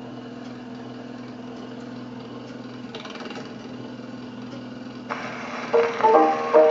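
A wind-up horn gramophone runs with a steady mechanical hum; about five seconds in the needle is set down on the spinning 78 rpm shellac record and its surface hiss comes in. Less than a second later the record's musical introduction starts, a run of separate, regularly repeated notes.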